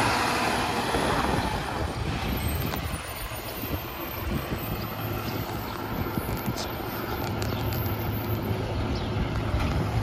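Diesel engine of a Crane Carrier (CCC) garbage truck with a Pak-Mor rear-loader body, running steadily as the truck pulls away down the street; the sound drops back somewhat about three seconds in.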